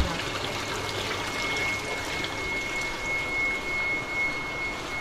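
Water pouring steadily from pipes into glass live-seafood holding tanks, a continuous splashing trickle, with a faint steady high-pitched whine underneath.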